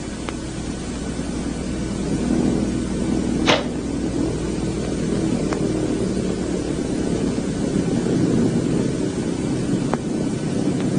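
A low rumbling noise that slowly grows louder, with a sharp click about three and a half seconds in and a few faint ticks.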